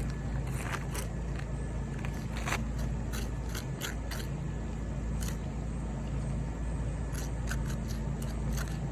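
Scattered scrapes and short clicks of movement on asphalt roof shingles, over a steady low hum.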